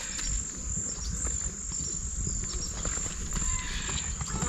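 Insects singing, a steady high-pitched drone, with a low rumble underneath.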